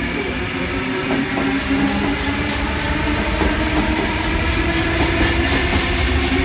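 Sydney Trains Tangara electric train pulling out past the platform. Its motors hum with a steady tone, and from about two seconds in its wheels click over the rail joints about three times a second.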